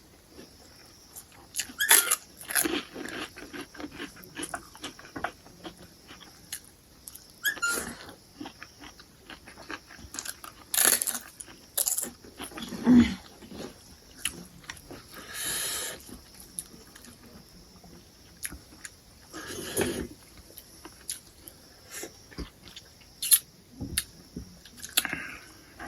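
Close-up eating sounds of crab being bitten and chewed: irregular crunches and mouth clicks, with a few longer sucking sounds.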